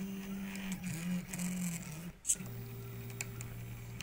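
Stepper motors of a DIY Arduino pen plotter whining as they drive the pen carriage through a drawing, their pitch stepping up and down with each change of move. A single sharp click comes a little past halfway.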